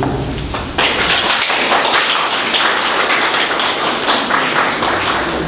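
Audience applauding, breaking out suddenly about a second in as a dense patter of claps, then easing off near the end.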